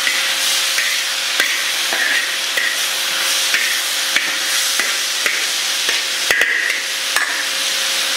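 Fish and vegetables sizzling in a hot wok while a metal slotted spatula stirs and scrapes against the pan, giving a short scrape or clack about every half second to second over a steady frying hiss. The longest scrape comes about six and a half seconds in.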